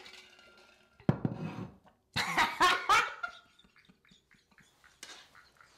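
Women laughing hard, the loudest bursts of laughter coming about one to three seconds in, then dying down to quieter giggles.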